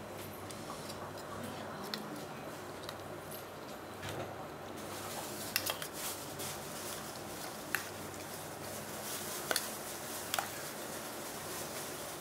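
Steel spoon stirring sliced onions and curd in a steel bowl: soft squishing with sharp clinks of the spoon against the bowl, mostly from about five seconds in, over a steady low hum.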